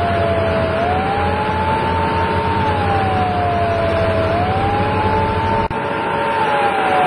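Emergency-vehicle siren wailing slowly up and down, about one rise and fall every three and a half seconds, over a steady rush of noise and the low drone of a fire truck's engine and pump spraying water. The low drone stops suddenly a little under six seconds in while the siren carries on.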